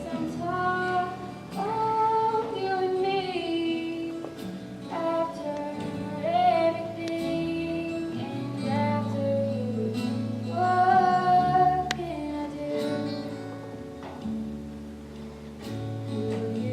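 A song from a stage musical: singing over an instrumental accompaniment.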